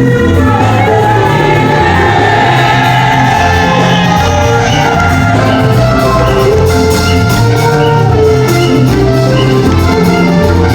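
Loud music with a steady bass line and beat, with singing or shouting over it.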